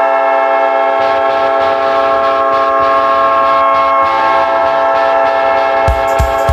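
Winnipeg Jets NHL goal horn blaring on one steady, many-toned pitch. Near the end the goal song's kick-drum beat comes in under it.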